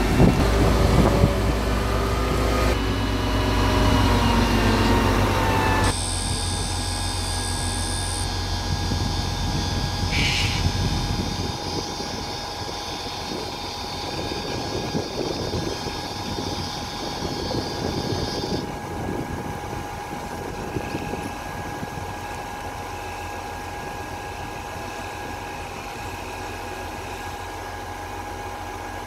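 Engine of a 55-tonne mobile crane running steadily as it hoists a personnel basket. It becomes suddenly quieter about six seconds in.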